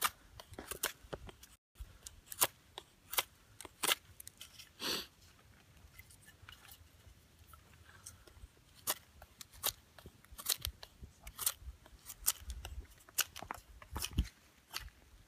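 Knife shaving and carving a piece of dry dead pine to flatten it into a bow-drill hearth board: irregular short scraping cuts, several a second.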